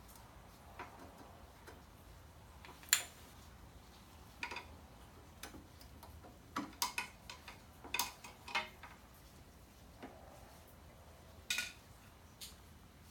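Irregular sharp metal clicks and taps from hand tools and brake parts being worked on a motorcycle brake caliper while the old pads are freed. The loudest click comes about 3 s in, with a quick cluster a little past the middle.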